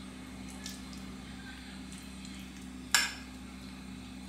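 Light handling of a metal spoon and filling, then one sharp clink of the metal spoon against the ceramic bowl about three seconds in, over a steady low hum.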